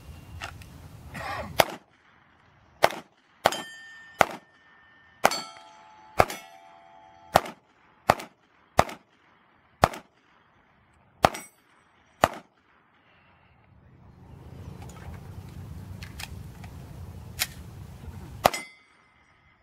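Pistol shots fired at steel targets, many followed by the ringing clang of a struck steel plate. About a dozen shots come at an uneven pace over the first twelve seconds, and two more come near the end after a pause filled with a steady rushing noise.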